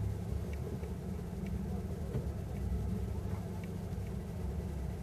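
Steady low hum of an idling car engine heard from inside the cabin, with faint scattered clicks.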